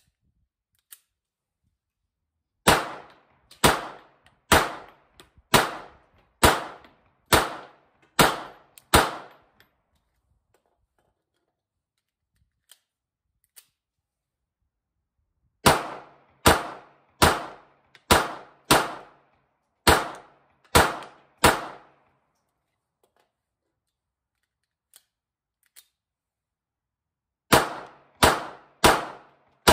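Beretta 85BB Cheetah .380 ACP pistol fired in strings of about one shot a second. Eight shots come first, then a pause of several seconds, then eight more, then another pause, then four more near the end. A few faint clicks fall in the pauses.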